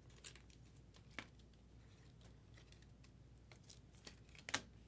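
Faint handling of Topps Chrome trading cards: a few soft clicks and taps as the cards are flipped through, the loudest near the end.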